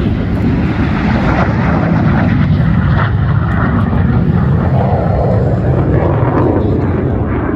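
Airplane flying by, its engine noise loud and steady.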